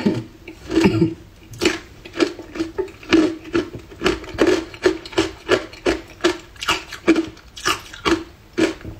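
Hard ice cubes dusted with matcha powder being crunched between the teeth, close to the microphone: a steady run of sharp crunches, about two a second.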